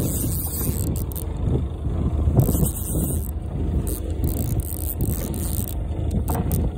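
Steady low rumble aboard a small fishing boat at sea: engine and water noise.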